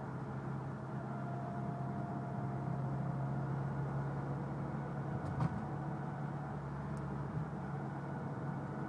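Mitsubishi Lancer Evolution X driving under load, its steady drivetrain hum carrying a thin, high whine that swells and fades. The owner suspects the transmission or the transfer case, and says it only whines under load. A brief knock is heard a little past halfway.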